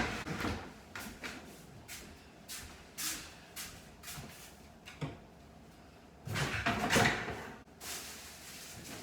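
A run of scattered knocks and clatters, with a louder stretch of scraping and rustling about six to eight seconds in, as furniture parts and packaging are handled and moved.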